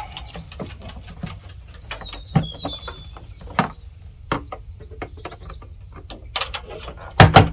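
Scattered clicks and knocks of an old plastic porch light fixture being worked and pulled at, stuck tight on its mounting studs, with a quick cluster of loud knocks near the end. A bird chirps briefly about two seconds in.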